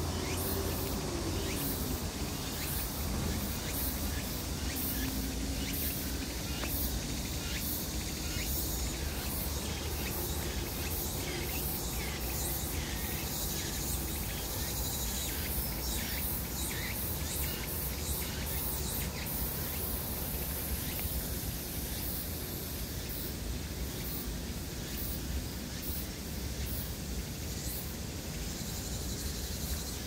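Insects trilling steadily in the forest, a dense high-pitched chorus that runs on without a break, over a low steady rumble.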